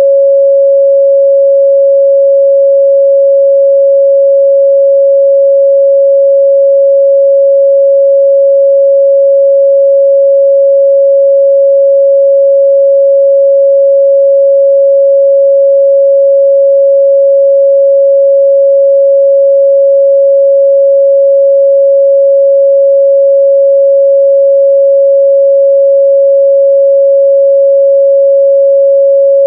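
Pure 553 Hz sine-wave test tone, a single steady mid-range pitch held unchanged at a loud level.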